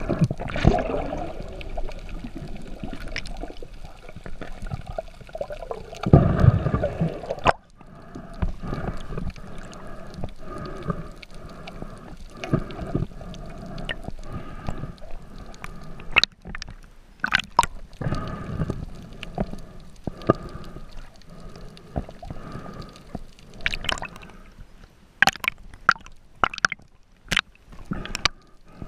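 Muffled underwater sound through a submerged camera: a churning rush of water with bubbling and gurgling, surging loudest about six to seven seconds in, then scattered sharp clicks through the second half.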